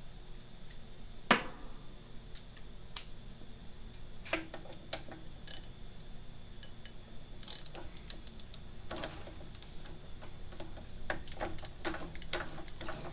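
Socket ratchet clicking in short, irregular runs as its handle is swung back and forth on a half-inch bolt. It is being turned the wrong way, so the bolt isn't coming loose. There is a sharp knock about a second in.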